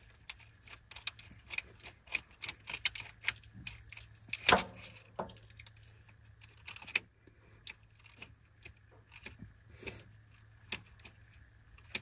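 Hands fitting a line and its fitting on a truck's steel frame rail: irregular light clicks and rattles, a few a second, the loudest about four and a half seconds in.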